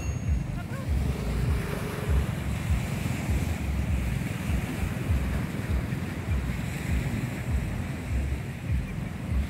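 Small waves breaking and washing along a pebbly shore, with wind buffeting the microphone in an uneven low rumble.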